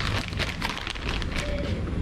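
Plastic bag rustling and crinkling as it is handled, over a low steady rumble.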